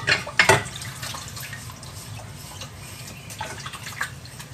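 Dishes being washed by hand in a kitchen sink: water splashing and running while a sponge scrubs a ceramic bowl, with two or three sharp knocks of dishware against the sink in the first half-second and small clinks later.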